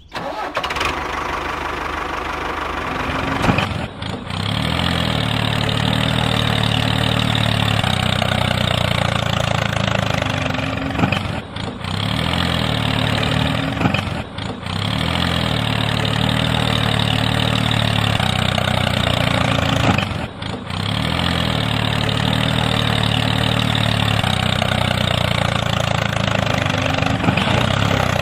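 A tractor engine running steadily at an even pace, cutting out briefly four times.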